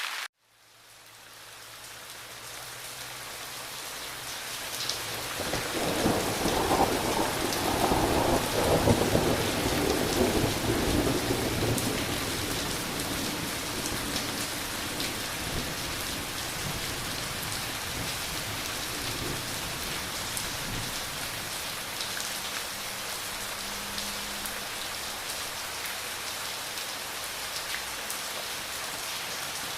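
Heavy rain falling steadily. Just after the start the sound cuts out for a moment and fades back in. A long, deep rumble of thunder builds and rolls through from about five to twelve seconds in, then fades under the rain.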